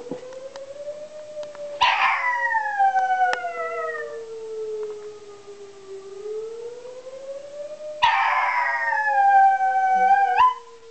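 A dog howls twice at a tornado warning siren. The siren's single tone rises and falls slowly throughout. Each howl starts loud and slides down in pitch: the first about two seconds in, the second about eight seconds in, which ends with a brief upward break before cutting off suddenly.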